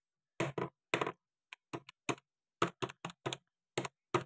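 Keys of a Casio MJ-120 series desktop calculator being pressed: an uneven run of about fifteen short plastic clicks.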